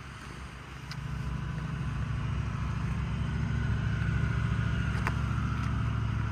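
A motor vehicle's engine running with a steady low hum that grows louder over the first few seconds, then holds.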